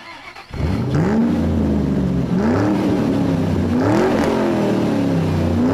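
Car engine revving again and again, its pitch rising and falling about every second and a half, starting about half a second in.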